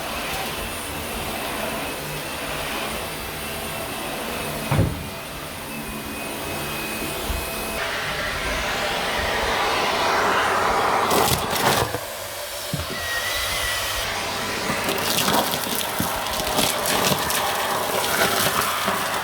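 Dyson vacuum cleaner running steadily over carpet, with a single thud about a quarter of the way through. In the second half it grows louder and fuller, with a dense crackle of small clicks over the steady suction.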